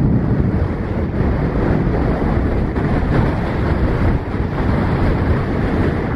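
Wind gusting at about 30 miles an hour across the microphone, a loud, steady, deep wind noise.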